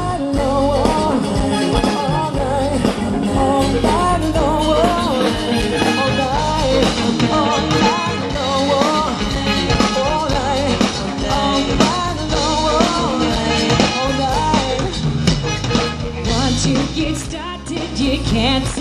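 Live rock band playing an upbeat, ska- and Latin-tinged party song with drums and bass, a wavering melodic lead line on top and no sung words.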